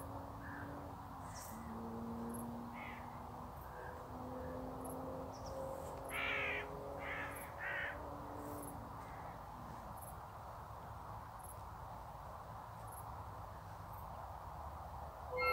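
A crow caws three times, about six to eight seconds in. Under it are faint held low tones from the biodata sonification, shifting slowly in pitch, over quiet outdoor background noise.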